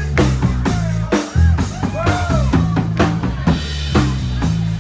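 Live band playing a funk groove: a drum kit with kick, snare and rimshots keeps a steady beat over a stepping bass line, and a few sliding melody notes sound above it.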